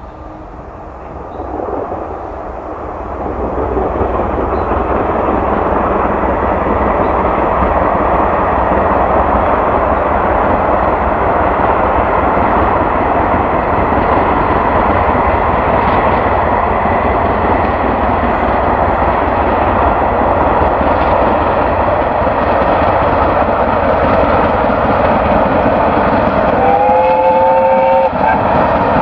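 BR Britannia-class Pacific steam locomotive 70013 Oliver Cromwell working hard at speed with a passenger train. Its exhaust builds over the first few seconds into a loud, steady roar. A couple of seconds before the end its chime-like whistle sounds once, for about a second and a half.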